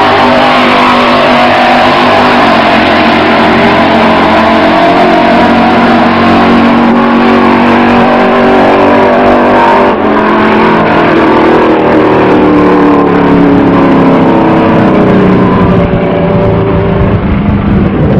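Drag-racing car engine at wide-open throttle on a quarter-mile run. The engine note is loud and steady, climbing slowly in pitch in the second half.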